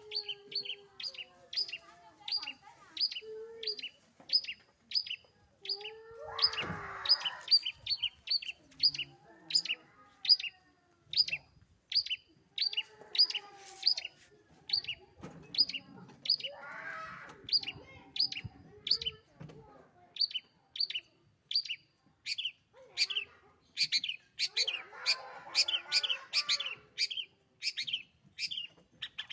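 Long-tailed shrike (cendet) calling in a fast, unbroken series of short, sharp high notes, about two a second. Fainter, lower chattering sounds come up behind it a few times.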